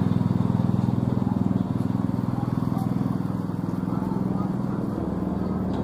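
A small motorcycle engine idling steadily close by, with a fast even putter. It gets a little quieter after a second or two.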